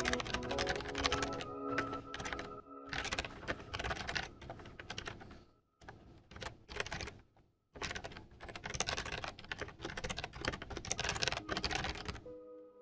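Rapid typing on a computer keyboard, a dense run of key clicks broken by a few short pauses, over soft background music.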